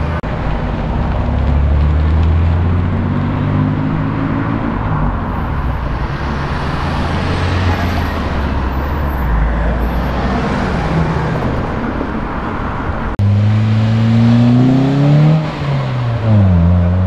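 Cars driving past and pulling away one after another, engines and exhausts running, among them a Toyota Supra. After a cut about 13 s in, a Toyota Corolla hatchback with a large aftermarket exhaust accelerates away. Its revs rise for about two seconds, drop sharply at a gear change, then rise briefly and fall away.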